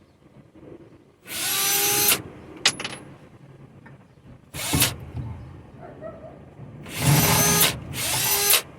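Power drill running in four short bursts, the motor winding up at the start of each, as it backs screws out of a wooden bed frame. The first burst lasts about a second, the second is brief, and the last two come close together near the end.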